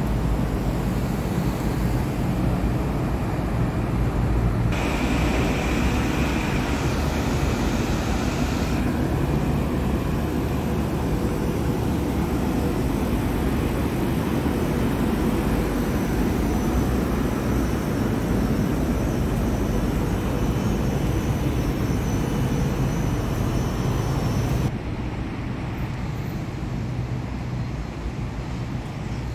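Steady road-traffic noise with a deep rumble. It drops abruptly to a quieter hum about 25 seconds in.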